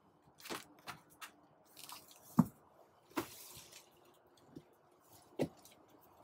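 Handling noise in a quiet truck cab: a scattered series of short clicks, light knocks and rustles, with one sharper knock about two and a half seconds in.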